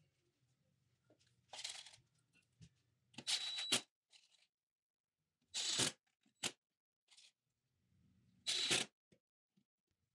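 Cordless drill driving screws through a metal drawer slide into plywood, in four short bursts with a high motor whine, with small clicks between them.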